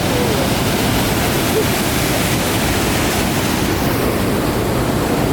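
Rushing water of a mountain stream and waterfall, a steady, loud noise.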